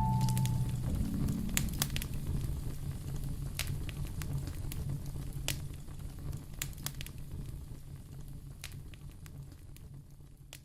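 Fireplace crackling, with scattered sharp pops over a low rumble, fading out steadily.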